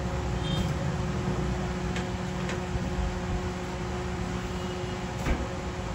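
Steady machine hum over a noisy background, with a low drone and a thin steady tone, a few faint clicks, and a short knock about five seconds in.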